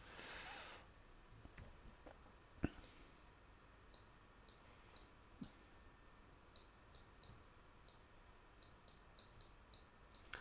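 Faint computer mouse clicks with near silence between them: one sharper click about two and a half seconds in, then a scattered run of light clicks through the second half.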